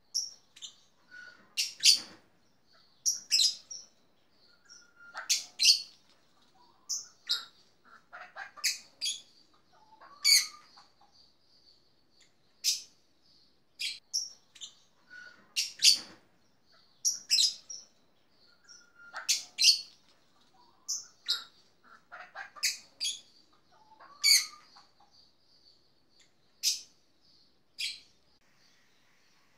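Black-tufted marmoset giving short, sharp, high-pitched chirping calls, singly or in quick pairs every second or two.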